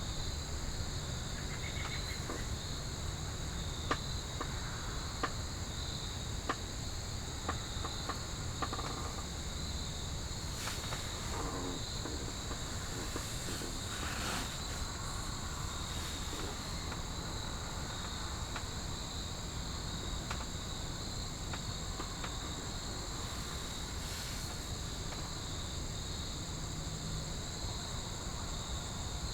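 Crickets and other insects calling together: a steady high trill with a lower, pulsing chirp beneath it, and a few faint ticks in the first half.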